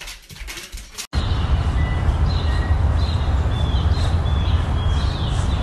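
Faint scattered clicks for about a second, then a sudden switch to a steady low rumble with hiss and small birds chirping over it: short high chirps, repeated many times, some dropping in pitch.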